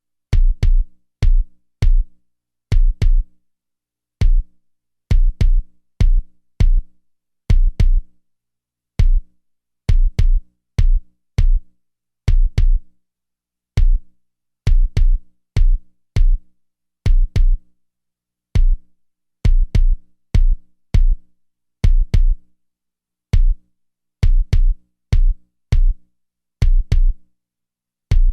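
Electronic kick drum pattern triggering a 30 Hz bass tone: a test signal for checking how a system reproduces very low bass. Short, deep thumps come in a repeating syncopated rhythm of single hits and quick doubles, with silence between them.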